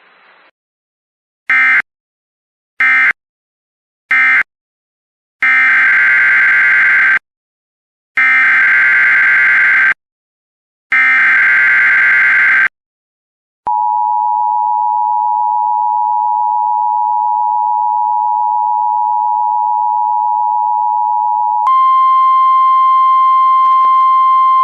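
Emergency Alert System SAME data bursts: three short warbling bursts, then three longer ones, encoding the alert's digital header. These are followed by the steady two-tone attention signal for about eight seconds, which switches near the end to a single steady weather-radio tone.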